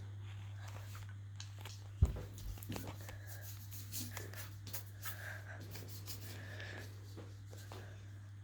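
Small taps and clicks of painting materials being handled on a table, with one thump about two seconds in, over a steady low hum.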